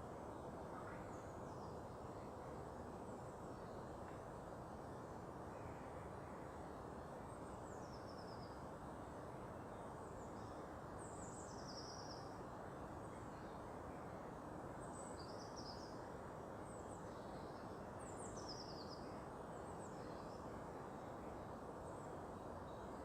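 Small birds calling faintly, many short high chirps falling in pitch, scattered through and thickest in the middle, over a steady low rushing background noise.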